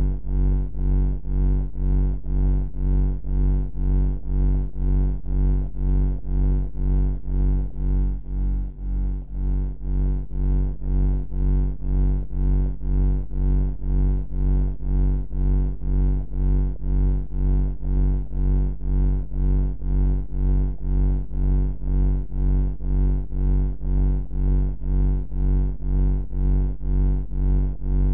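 Deep, low ambient bunker hum, a steady drone that throbs about twice a second, with a brief dip about nine seconds in.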